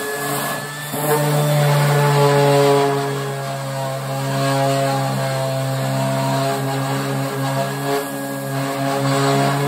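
Electric random orbital sander running steadily with a humming motor, its pad sanding old paint off a steel VW Beetle decklid; the hum dips briefly about a second in.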